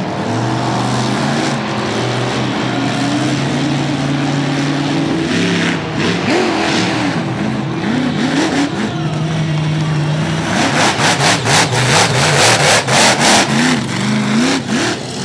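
Monster truck engine running loud, its pitch swinging up and down as it is revved. From about ten seconds in it is blipped in quick pulses, about three a second.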